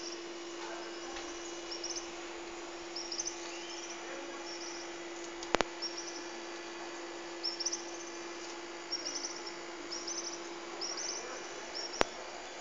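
Short high bird chirps repeating about once a second over a steady low hum, with a sharp click about halfway through and another near the end.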